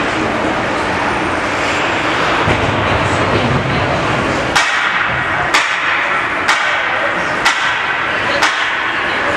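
Arena crowd noise with indistinct voices. About halfway through come five sharp bangs, evenly spaced about a second apart.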